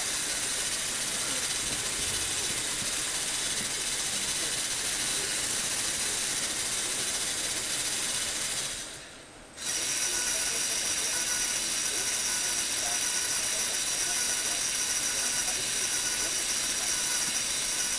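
Lego Technic electric motor running a plastic gear train, a steady high whirr with a faint whine. It winds down and stops about nine seconds in, then starts up again abruptly a second later.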